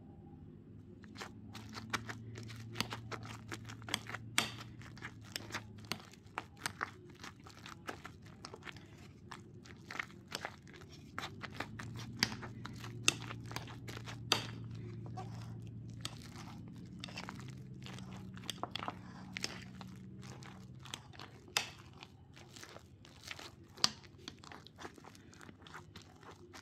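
Wire potato masher pressed again and again through soft mashed potatoes with butter in a ceramic bowl: a quick, irregular run of squelches and clicks, starting about a second in.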